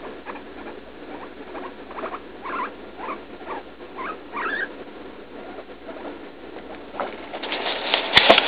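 Guinea pig giving a run of short, repeated squeaks, about two a second, which the owner takes for pain while passing droppings. Near the end, a louder burst of rustling with a few sharp knocks as the camera is handled against the fur and blanket.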